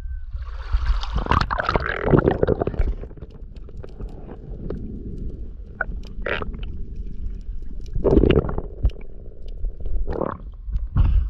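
Water splashing as an action camera goes under the sea surface, then muffled underwater sound with gurgling. Further splashes come about eight, ten and eleven seconds in as it breaks the surface again.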